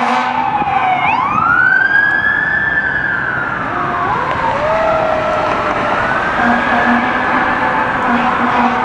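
Fire engine siren wailing as the truck responds: slow sweeps rising and falling in pitch, with a second siren tone overlapping from about four seconds in. Short steady low blasts, likely the air horn, come twice near the end.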